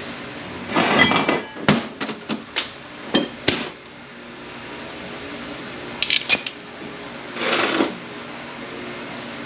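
Metal automatic-transmission parts being handled on a bench: a scrape with a brief ring, then several sharp clinks and knocks, a quick cluster of light clicks about six seconds in, and a short rushing noise near the end, over a steady fan hum.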